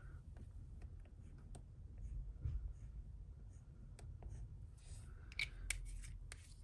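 Faint small clicks, taps and light scraping as a small plastic bottle of testing acid is uncapped and dabbed onto metal streaks on a touchstone during jewellery metal testing, with a few sharper clicks about five and a half seconds in.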